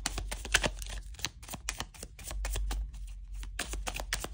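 A deck of tarot cards being shuffled by hand: a quick, uneven run of card clicks and flicks.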